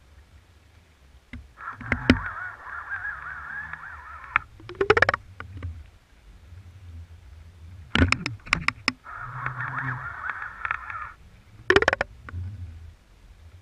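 Underwater camera rig on a halibut line, heard from inside the waterproof camera housing, with a giant Pacific octopus pulling on it. There are two harsh, wavering squeals, about a second and a half in and again near nine seconds, with sharp clicks and knocks in between over a low rumble.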